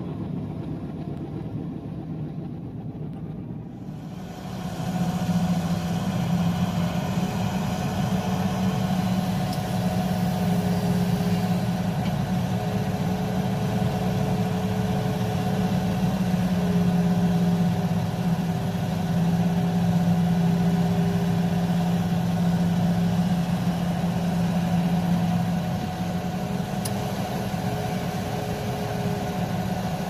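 Heavy diesel engines of earthmoving machines running steadily: a Komatsu D85SS crawler bulldozer close by at the start and a Hitachi hydraulic excavator digging. The engine hum grows louder and brighter about four seconds in and then holds steady.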